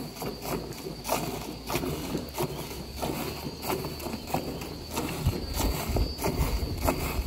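Cow being milked by hand: jets of milk squirting into the pail in a steady rhythm, about two squirts a second.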